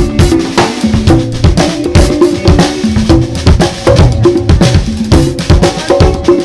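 Live band music driven by a drum kit played in quick, dense strikes, with a hand-held percussion block knocked in rhythm over a pitched guitar line.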